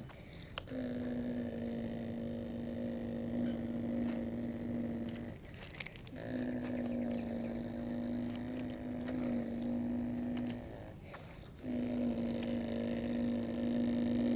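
Electric motor of a radio-controlled construction model running with a steady whine, in three runs that stop briefly between them.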